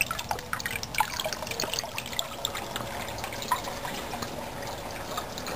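Water trickling and splashing steadily from a homemade rain-gutter filter into a fish pond, with many small irregular drips. The smaller pump keeps it flowing gently rather than gushing.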